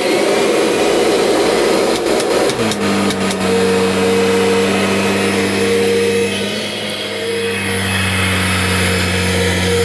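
Kirby Generation 5 upright vacuum cleaner running after being switched on, after a long time out of use. It starts with a rough rush of air, then settles into a steady motor hum about two and a half seconds in.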